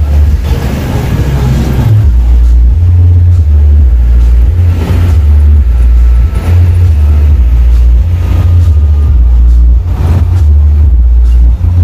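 Very loud deep bass from a truck-mounted 'horeg' sound system playing music, the bass line stepping between a few low notes, over motorcycle traffic noise.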